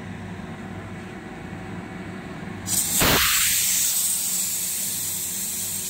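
Steady low machine hum, then, a little before halfway, a compressed-air blow gun opens with a loud hiss that briefly fills the low end and settles into a steady high hiss. It is blowing dust off a freshly CNC-cut wood sheet.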